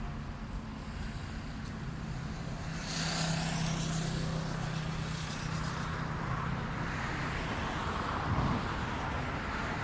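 An approaching train at a level crossing: a steady low hum, with a high hiss from the rails coming in about three seconds in and the rolling noise growing louder toward the end.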